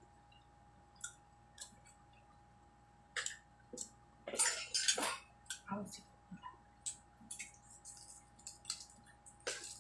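Scattered clicks, taps and light crinkles of utensils and takeaway food containers being handled during a meal, with the loudest cluster about four to five seconds in.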